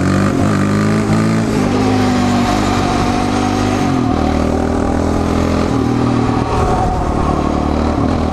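Yamaha Raptor 700 quad's single-cylinder four-stroke engine running under way, its pitch rising and falling several times with throttle changes.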